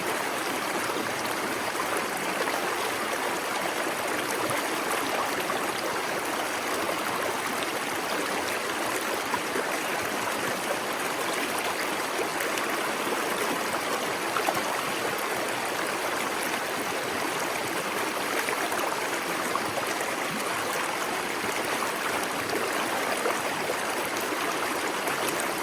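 Small waterfall splashing steadily into a plunge pool, with the stream's continuous rushing and trickling.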